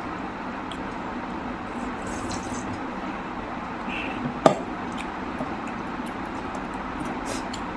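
A steady background hiss with small eating and handling ticks, and one sharp clink of dishware about halfway through.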